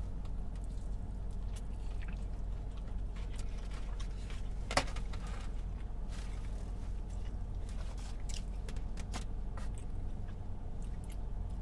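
Close-up mouth sounds of someone biting into and chewing a birria taco: scattered wet clicks and smacks, one sharper click about five seconds in, over a steady low hum.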